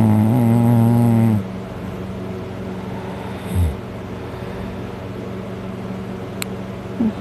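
A man's heavy snoring, passed out drunk on his back: one long, loud, buzzing snore that ends about a second and a half in. Two short, quieter snorts follow, at about three and a half seconds and near the end, over a steady low hum.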